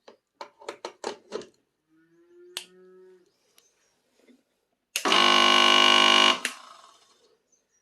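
A few clicks, then a mixer grinder's universal motor is switched on and gives a loud, steady buzzing hum for about a second and a half before it is switched off and winds down. The motor turns slowly with an abnormal sound, which the technician puts down to a short circuit in the winding that draws high current (7.7 A against about 1 A normal).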